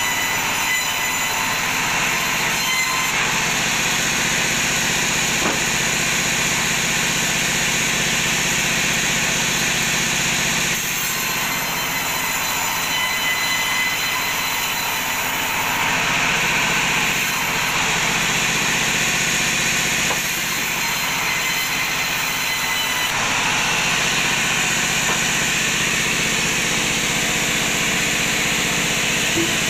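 Sawmill bandsaw ripping a teak log lengthwise into a board: the blade and drive run steadily under load with a high hiss of cutting, the tone shifting a few times as the cut goes on.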